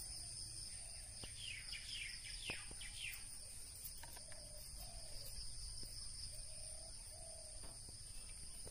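Steady high-pitched insect drone, with a bird calling a quick run of short falling chirps about one and a half to three seconds in, and a few faint ticks.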